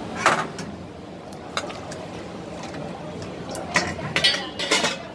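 Clatter of stainless steel pots, lids and a ladle at a hawker stall: a sharp clank just after the start, a couple of lighter clinks, then a run of clanks near the end, over a steady background hubbub.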